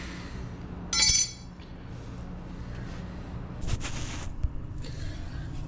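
A single metallic clink with a brief ring about a second in, typical of a hand tool knocking against metal. A steady low hum runs under it, and a short rustling scrape comes near the four-second mark.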